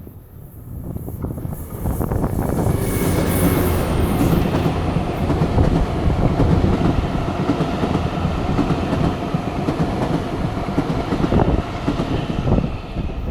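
A freight train passing close by: a DD200 diesel-electric locomotive hauling a new Seibu 40000 series electric train set on its own wheels. The rumble swells about two seconds in, with wheels clattering over the rail joints, and eases near the end.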